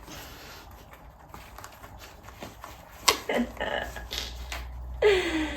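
Quiet handling of gift packaging: faint rustling, a sharp click about three seconds in, and more rustling, then a woman's brief falling "ooh" near the end.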